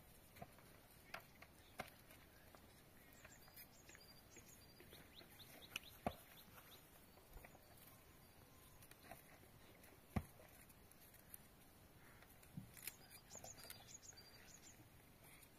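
Faint scattered knocks and clicks, the two loudest about six and ten seconds in, over a quiet background, with a few short high bird chirps about three to six seconds in and again near the end.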